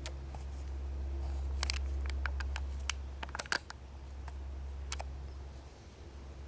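Unexplained low droning hum heard from the sky, like a distant plane that never passes, swelling and fading slowly. A scatter of sharp clicks and taps in the middle.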